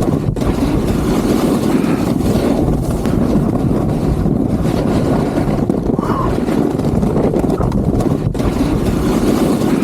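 Loud, steady wind rush on the microphone of a skier's camera while skiing downhill at speed, with the rumble and hiss of skis running over off-piste snow.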